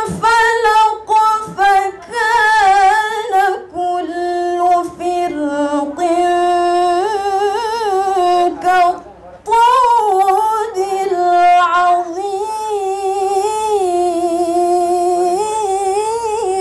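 A woman reciting the Qur'an in the melodic tilawah style into a handheld microphone: long held notes with wavering ornaments, with a short pause for breath about nine seconds in.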